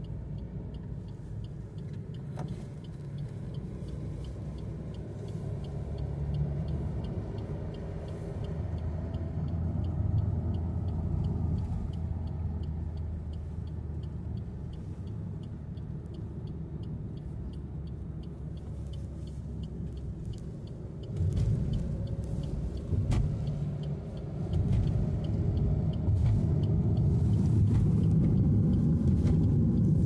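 Car driving, heard from inside the cabin: a steady low engine and road rumble that gets louder about two-thirds of the way through and again a few seconds later. A faint, regular high ticking runs under it for most of the first two-thirds.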